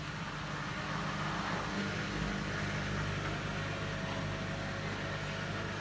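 Bosch WAT28370GB front-loading washing machine running at the start of its second intermediate spin, with the drum turning and the motor giving a steady hum.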